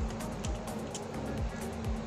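Background music with a steady dance beat: a deep kick drum about twice a second, with a held low note and light high ticks.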